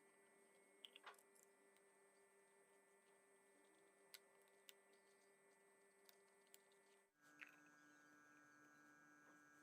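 Near silence: faint steady electrical hum with a few faint ticks, the hum changing pitch about seven seconds in.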